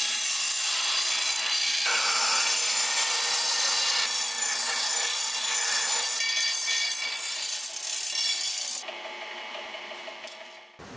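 Steel bar pressed against the stone wheel of a bench grinder, a loud steady grinding hiss over the motor's hum. About nine seconds in the steel comes off the wheel and the grinder runs on freely, much quieter.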